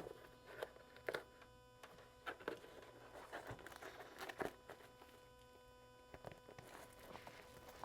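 Faint hand-handling noise: scattered light rustles and small taps as a ski boot liner and heating cable are worked by hand, over a faint steady hum.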